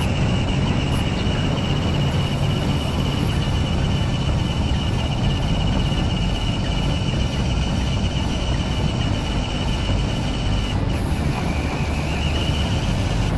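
RC Land Rover Defender scale truck driving, heard from its onboard camera: a steady high electric-motor whine over a low rumble of the wheels on wet paving. The whine drops out briefly near the end, then returns.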